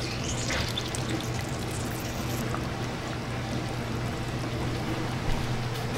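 Lemon juice trickling into a pot of chicken noodle soup as a lemon wedge is squeezed over it, with a steady low hum underneath.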